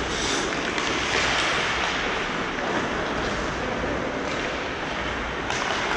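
Steady rushing noise of a hockey rink during play, with a faint knock near the end.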